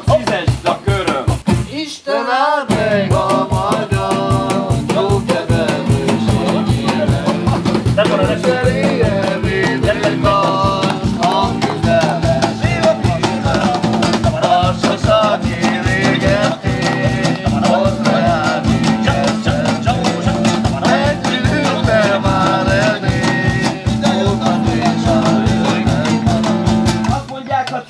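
Live Roma folk-style band music: singing over acoustic guitar, electric bass, a cajón and a metal can played as a hand drum, with a quick steady beat. The music stops for a moment about two seconds in, then carries on.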